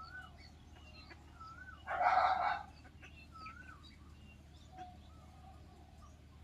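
Ducklings peeping softly again and again, with one loud, harsh bird call lasting a bit over half a second about two seconds in.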